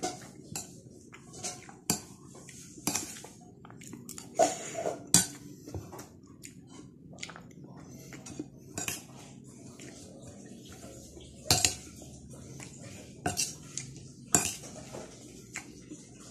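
A metal spoon clinking and scraping against a ceramic bowl of rice during a meal. The clinks are sharp and irregular, a few of them louder than the rest.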